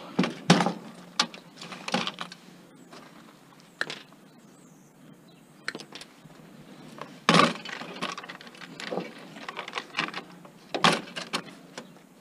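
Black plastic connector plugs being popped off a computer circuit board: irregular sharp snaps and clicks, the loudest about half a second in, in the middle and near the end.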